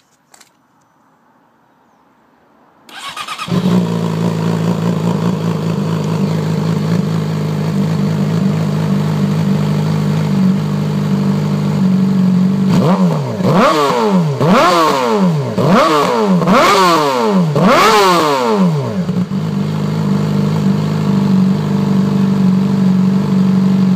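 2011 Yamaha R6 inline-four through a Taylormade full exhaust system starting about three seconds in and settling to a steady idle. Midway it gets five quick throttle blips about a second apart, each rev rising and dropping straight back, and then it returns to idle.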